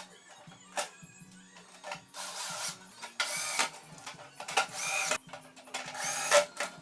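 Electric screwdriver running in short bursts, about four whirs of half a second each with a few clicks between them, as screws are driven to close up the wiring.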